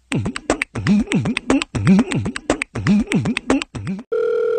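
A beatbox-style comic music clip: sharp rhythmic beats with swooping bass notes. About four seconds in it cuts to a steady telephone tone.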